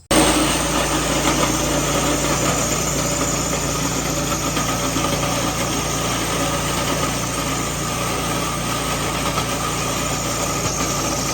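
A rented concrete floor grinder running steadily, a loud even machine noise with a low motor hum.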